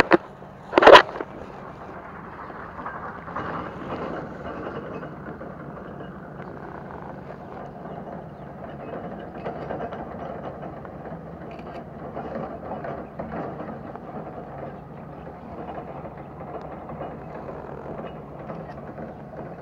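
Two sharp knocks about a second apart, then steady rustling and scuffing from a chest-mounted action camera being jostled.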